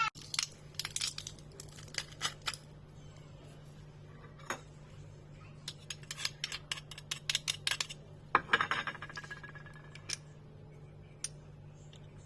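Scattered clicks and light taps of kitchen utensils and dishes, with one clink that rings briefly about eight and a half seconds in, over a faint steady hum.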